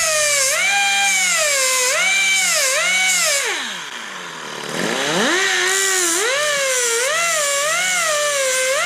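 A 3-inch cutoff tool cutting a bolt head round: its motor whines with the pitch dipping and rising as the wheel bites into the metal. About halfway through it winds down almost to a stop, then speeds back up and carries on cutting with a quicker wavering pitch.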